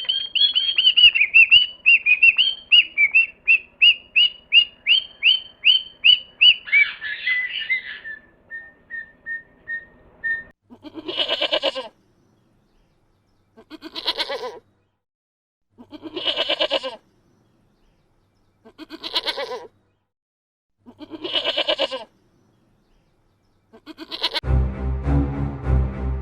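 A rapid run of high-pitched chirps for about seven seconds, fading out, then a farm animal bleating five times, each call about a second long and roughly two and a half seconds apart. Music starts near the end.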